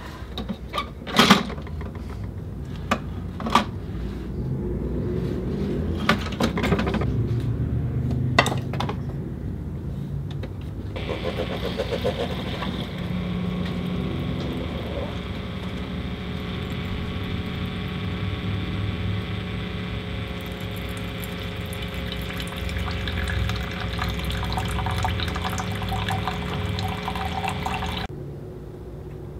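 Keurig single-serve coffee maker: several sharp clicks and knocks in the first nine seconds as the machine is handled. Then, from about eleven seconds in, its brewing pump runs steadily while coffee streams into a mug, and the sound cuts off abruptly near the end.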